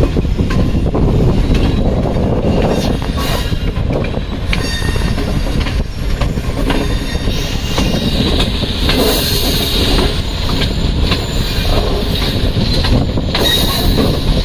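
Tezgam Express passenger train running over the rails, wheels clicking over joints and points as it nears a station. A high wheel squeal comes in about halfway through and holds to near the end.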